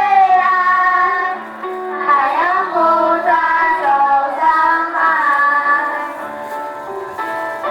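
Music: a high, child-like voice singing long held, gliding notes over accompaniment, growing softer near the end.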